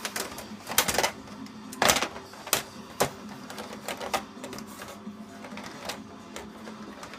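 A run of irregular sharp knocks and clacks, about a dozen over several seconds, the loudest near one and two seconds in, over a steady low hum.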